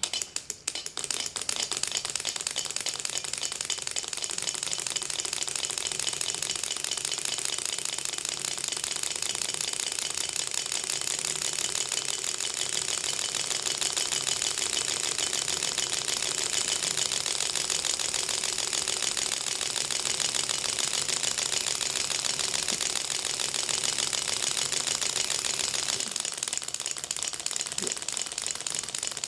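Six-cylinder rotary Ringbom Stirling engine set spinning by hand, then running on its own with a rapid, steady clicking like a Gatling gun. The clicking comes from each piston working against its free displacer and knocking it back and forth.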